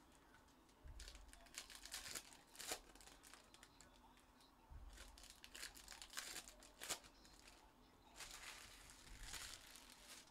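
Plastic wrapping crinkling and tearing as trading card packs are opened by hand, in three bouts a few seconds apart.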